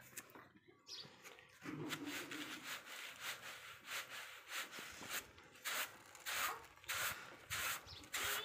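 Hand rubbing and sweeping dry grain across a jute sack: a rhythmic scraping, about two strokes a second.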